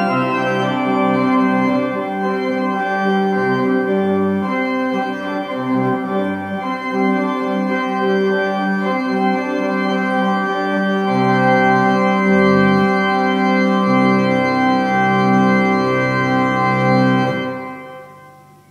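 Kenneth Jones pipe organ (1989) playing a loud French-style carillon: a fast repeating figure in the hands over pedal notes, ending on a long held full chord that is released near the end and dies away in the room.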